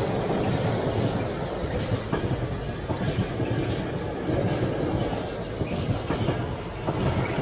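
Freight train of tank wagons rolling past: a steady rumble of steel wheels on the rails, with occasional clacks as wheels cross the rail joints.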